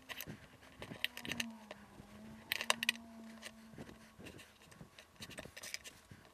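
Boning knife trimming the hard, dried crust off a dry-aged beef roast on a wooden cutting board: irregular clicks and scrapes as the blade cuts through the stiff outer layer and touches the board.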